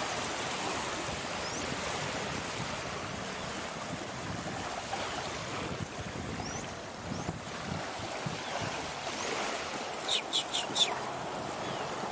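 Small waves washing up and back on a sandy beach in a calm bay, a steady wash. About ten seconds in, four short, sharp high-pitched sounds come in quick succession.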